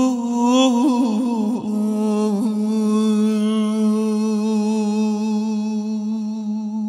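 Male voice singing in Persian classical style in dastgah Homayoun: a few quick wavering ornamental turns at the start, then one long steady held note over a low drone, ending near the end.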